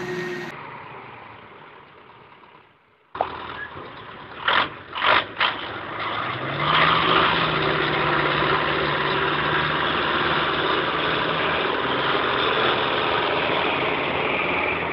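Heavy diesel engine of a Tatra 815 dump truck stuck in mud, revving hard and held at high revs in a steady labouring drone, after a few short loud blasts as it starts to pull.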